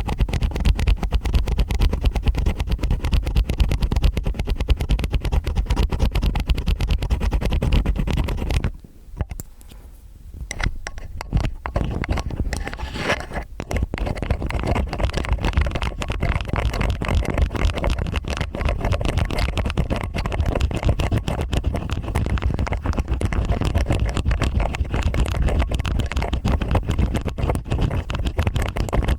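Stainless steel ear picks scraping in both ears at once, close up: dense, rapid scratching and crackling. It drops away for about two seconds, about nine seconds in, then resumes.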